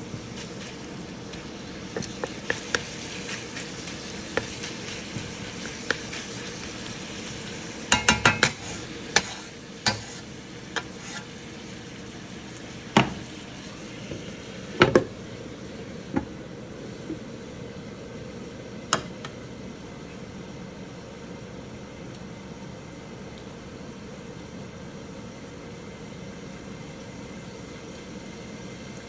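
Chopped bacon sizzling in a wok, with a wooden spatula clicking and scraping against the pan in bursts during the first half. A wooden lid is set on the wok with a double knock about fifteen seconds in, and the sizzling goes on steadily under it.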